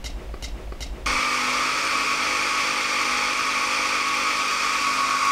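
Handheld stick blender with a chopper bowl, its motor starting about a second in and then running steadily as it blends frozen banana chunks and coconut cream into soft-serve ice cream.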